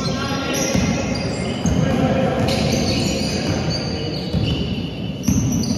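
Indoor basketball play: a basketball bouncing on the sports-hall floor as it is dribbled, with sharp high squeaks of trainers and players calling out, all echoing in the hall.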